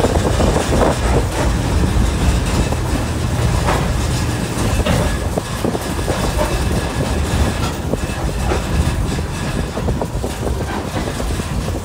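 Open-sided passenger car of a small train rolling along the track: a steady low rumble of wheels on rails, with scattered clicks and rattles.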